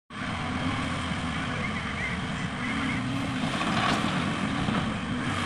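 Diesel engine of a JCB tracked excavator running steadily while it works, a low even hum with a brief brighter rasp about two-thirds of the way through.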